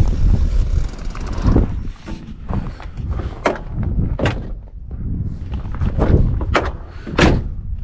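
Someone getting out of a 4x4 onto loose rocky ground: the vehicle door being handled and several sharp knocks and steps on the rock, over a steady low rumble.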